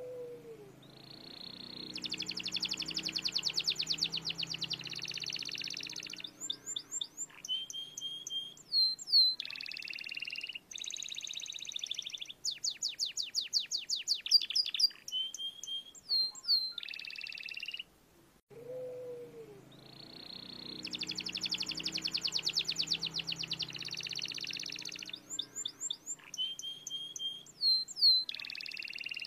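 Domestic canary singing a long rolling song: fast trills and rolls mixed with sharp falling whistles. It breaks off briefly about 18 seconds in, then starts the same song again.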